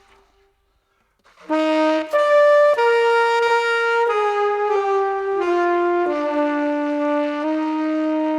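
Solo saxophone playing a slow melody. After a held note fades into a short pause, a new phrase comes in at about a second and a half, with several notes stepping downward before settling on a long held low note.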